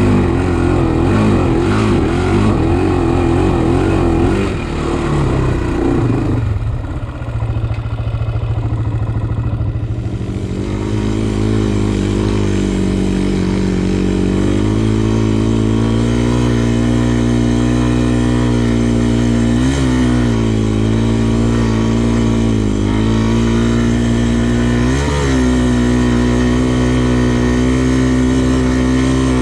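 Honda TRX400X quad's single-cylinder four-stroke engine working on a trail. It revs unevenly for the first few seconds and drops away about six seconds in. From about ten seconds it settles to a steady note, with two quick blips of throttle near twenty and twenty-five seconds.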